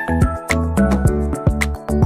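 Background music with a steady beat, about two beats a second, over a changing bass line.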